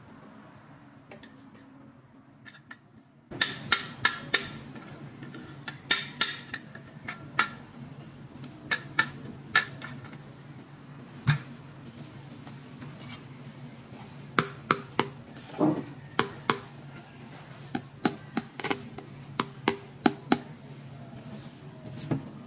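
Small hard plastic toy pieces being handled, clicking and tapping together in irregular sharp knocks. The knocks start about three seconds in, over a low steady hum.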